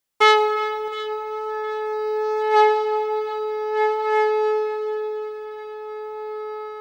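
A conch shell (shankh) blown in one long, steady note, starting just after a moment of silence and swelling slightly a couple of times.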